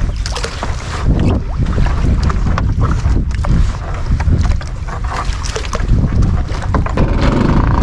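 Wind buffeting the microphone over open water, with irregular splashes, slaps and knocks as a gill net full of mullet is handled in a small wooden boat.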